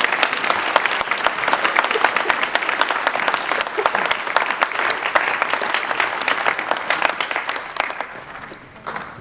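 Audience applauding, with dense clapping that tapers off near the end.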